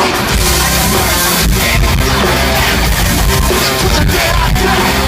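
Loud live rock-rap music over a concert sound system: heavy bass and drums with electric guitar.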